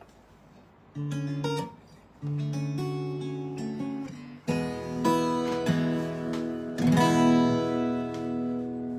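Acoustic guitar: a few notes plucked about a second in, then chords strummed several times and left ringing.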